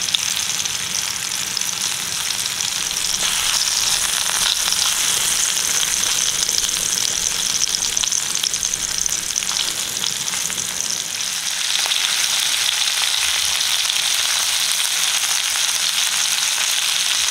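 Rice-flour- and semolina-coated tol fish shallow-frying in oil in a pan: a steady sizzle that swells a little a few seconds in and again after about twelve seconds, with a spatula now and then turning the fish. The sizzle is the sign that water is still cooking out of the fish; it stops once the fish is fried through.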